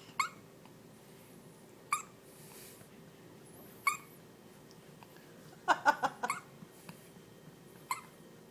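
A pet's hiccups: short, high chirps that sound like a sparrow, coming about every two seconds, with a quick run of several together near the middle.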